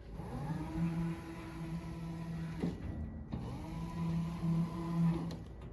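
Electric drive motors of a remote control robot chassis whining as it drives, in two runs of about two and a half seconds each, the pitch rising briefly as each run starts and then holding steady.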